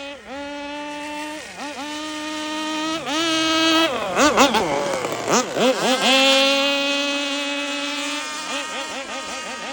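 Several radio-controlled racing boats running with a high-pitched buzz, their engine pitch swooping up and down as they pass. Loudest about four to six seconds in, where several boats overlap.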